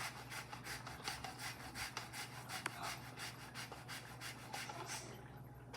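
Lemon being zested: the rind scraped over a zester in quick, even strokes, about four or five a second, stopping about five seconds in.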